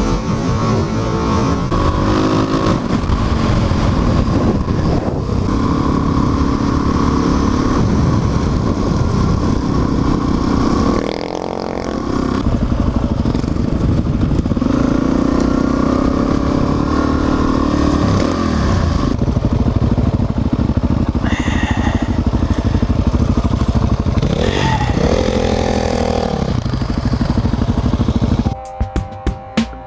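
Suzuki DRZ400SM single-cylinder engine with an FCR39 carburettor, running hard under riding load with wind rush. Its pitch rises and falls with throttle and gear changes, easing off briefly a little before the middle. Near the end it cuts to background music.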